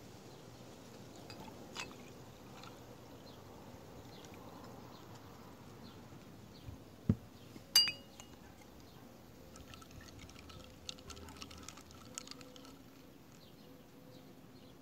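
Pomegranate juice poured from a small glass bottle over ice sticks in a tall glass, a soft, steady pour. About seven seconds in come a dull thump and then a sharp glass clink. Small clicks and crackles of ice follow, and a straw is pushed in among the ice near the end.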